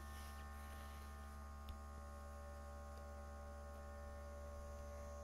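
Faint steady electrical hum, with one soft click a little under two seconds in.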